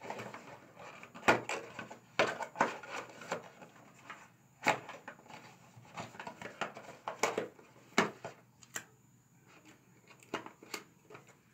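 Small objects being handled: irregular sharp clicks and taps, about a dozen, with faint rustling between them.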